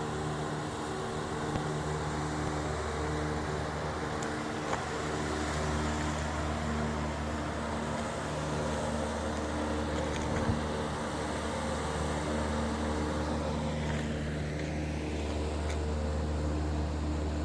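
Constant loud mechanical drone: a steady low hum with several steady tones above it, unchanging throughout, with a few faint clicks.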